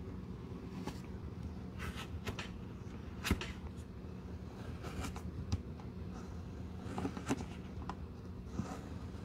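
A flat blade scraping and prying a worn black foam sole off a Birkenstock cork footbed, the glued sole tearing away with scratchy, crackling noise and a few sharp clicks, the loudest about three seconds in.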